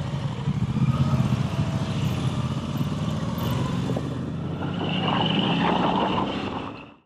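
Moto Guzzi V85 TT's air-cooled transverse V-twin running under way, heard from the rider's seat, its pitch rising about a second in as the bike pulls away. The sound fades out just before the end.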